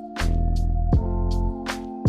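Background music with a steady beat: sustained synth chords over a pulsing bass, with regular drum hits.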